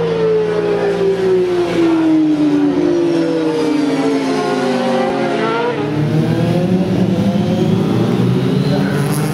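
Several racing motorcycle engines at high revs going past, the pitch of each sliding down as it passes. From about six seconds in a lower, fuller engine note builds.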